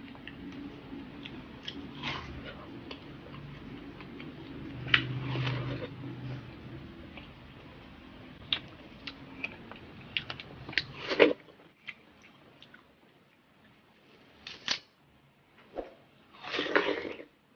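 Close-up eating sounds of biting into and chewing juicy yellow watermelon slices: scattered wet clicks and smacks with a few louder bites and slurps, the longest near the end.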